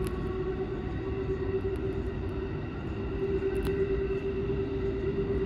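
JR West 223 series 2000 subseries electric train running slowly along the line, heard from the driver's cab: a steady low rumble with a steady whine held at one pitch.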